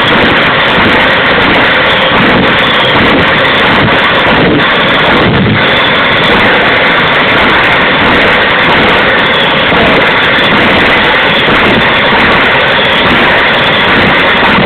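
Homemade gas turbine engine on a pocket bike running steadily and loudly: a continuous rushing noise with a faint high whine on top.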